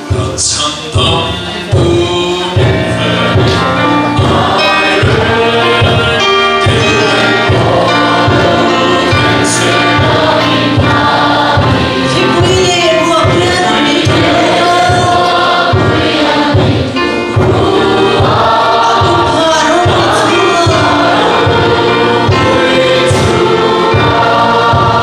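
Many voices singing a hymn together over a steady drum beat, about two strokes a second.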